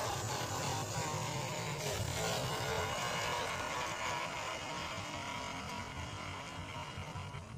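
Electric motor and geartrain of an MN86KS 1/12-scale RC crawler running as it drives over gravel, a steady small-motor sound that grows slightly fainter near the end as the model drives away.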